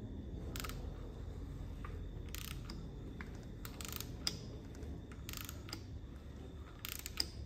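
Electric drill spinning a small-block Chevy's oil pump through the distributor hole to prime the oiling system, a steady low rumble. A few sharp ticks come at irregular moments.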